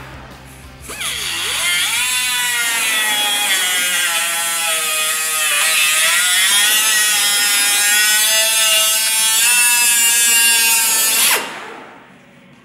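Pneumatic cut-off tool with a small abrasive wheel spinning up to a loud, high whine. Its pitch dips and wavers as the wheel is pressed into the steel bracket, and the tool shuts off abruptly near the end.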